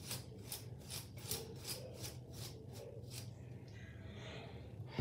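Hairbrush dragged quickly through thick hair in faint rasping strokes, about four a second, stopping about three seconds in.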